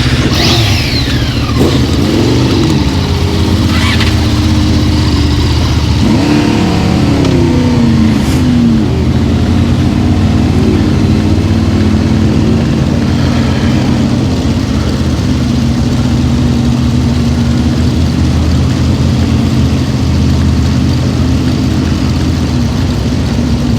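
Motorcycle engine idling steadily just after being started, revved briefly twice in the first nine seconds.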